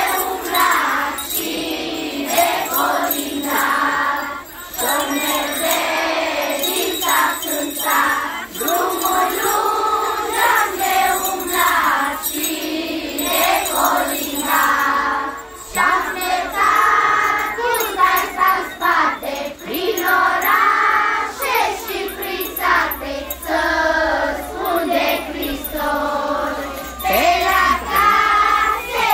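A large group of young children singing a Christmas carol (colindă) together in unison.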